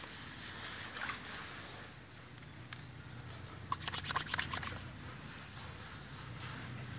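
Water lapping and dripping in a basin as hands wash a wet dog standing in it, with a short run of splashes and drips about four seconds in.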